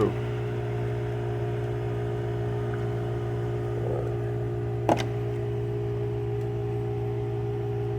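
Steady low machine hum, with one sharp click about five seconds in.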